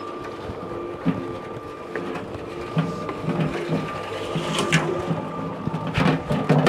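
Electric cement mixer running with a steady motor hum. A metal wheelbarrow with a shovel in it knocks and rattles as it is wheeled, a couple of single clanks and then several near the end.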